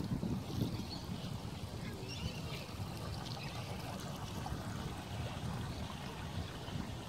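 Small waves lapping at the lakeshore, with an uneven low rumble of wind on the microphone.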